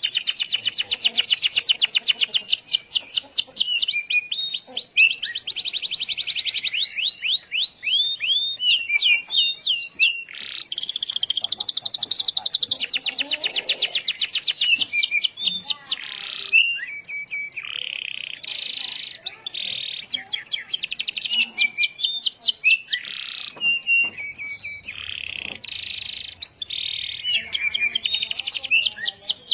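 Domestic canary singing non-stop: fast trills of rapidly repeated sweeping notes alternating with buzzy rolls, separated by brief breaks. It is an energetic song of the kind played to lure other canaries into singing.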